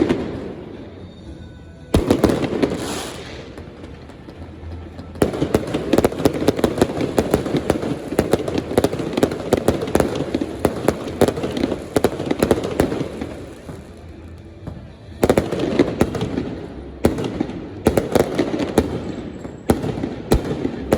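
Aerial fireworks going off: sharp bangs as shells burst, and a long stretch of dense crackling through the middle, with more bangs and crackle near the end.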